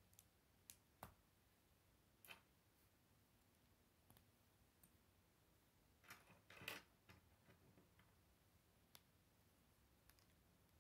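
Faint, scattered clicks of plastic K'nex rods and connectors being handled and snapped together, with a quick cluster of clicks about six seconds in.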